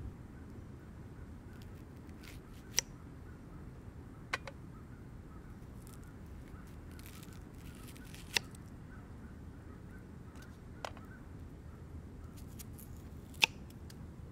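A knife slicing an onion on a flat stone: five sharp clicks at irregular gaps as the blade comes down on the stone, the last the loudest.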